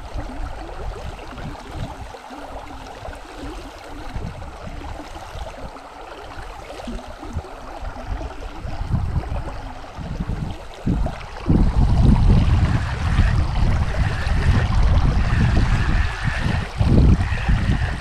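Shallow creek water running over rocks. Low rumbling buffeting on the microphone grows much louder about two-thirds of the way through.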